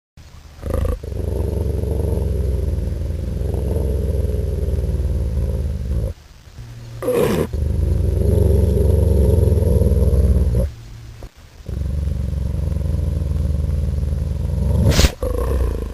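Wolf growling in three long, low stretches with short breaks between them, and a short falling cry about seven seconds in.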